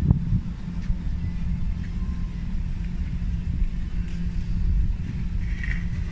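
A low, steady rumble with a faint hum running through it.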